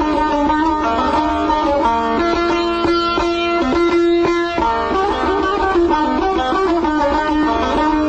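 Saz music: a long-necked plucked lute playing a quick melody of many short notes, with a fast run of repeated plucked notes partway through.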